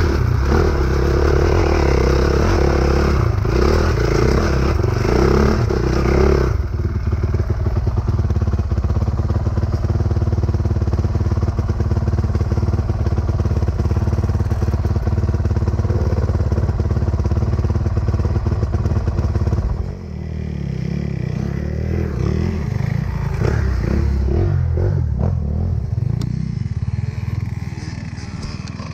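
Dirt bike engine pulling hard over loose gravel and rock for the first several seconds, then settling to a steady run after a sudden change about six seconds in. From about twenty seconds in it is quieter, with other dirt bikes revving as they climb.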